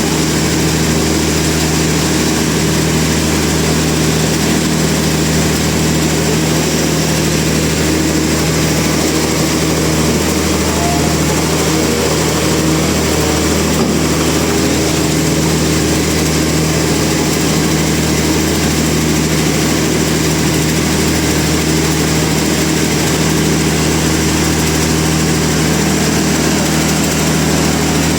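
Sawmill machinery running with a steady, unchanging low hum.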